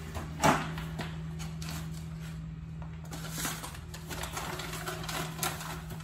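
A sharp knock about half a second in, then crackly rustling and light clicks as a paper instruction sheet and packaging are handled, over a steady low hum.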